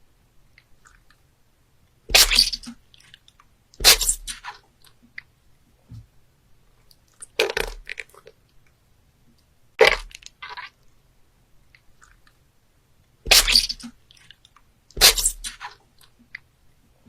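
Cuttlefish sound effect: six short, loud crackling, crunching bursts at irregular intervals of about two to three and a half seconds, with quiet between them.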